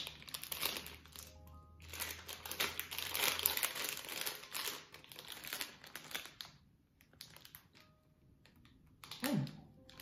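Plastic packet of Toms licorice sticks crinkling as it is handled and opened and a stick is pulled out. The crinkling is dense through the first few seconds, comes back in a second flurry, then thins out to occasional crackles.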